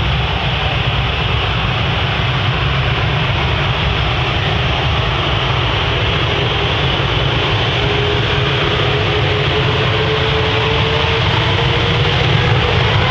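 Jet aircraft engines giving a steady, loud roar. About eight seconds in, a whine rises slowly in pitch above it.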